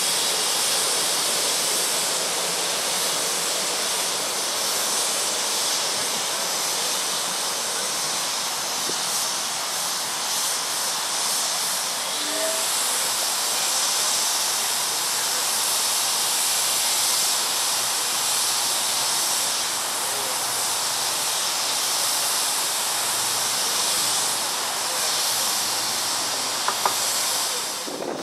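Steady hiss of steam escaping from a ridable-scale live-steam locomotive.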